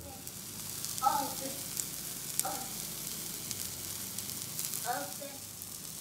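Zucchini pancake batter frying in coconut oil in a pan: a steady sizzle with fine crackling, broken by three brief higher-pitched sounds about one, two and a half and five seconds in.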